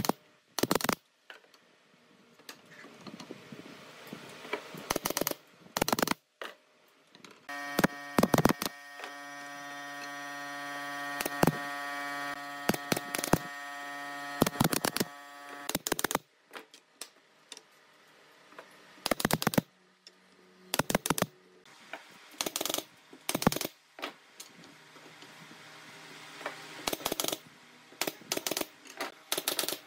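Pneumatic nail gun driving nails into pine slats: sharp shots, singly and in quick pairs, at irregular intervals. A steady machine hum runs under the shots for several seconds in the middle.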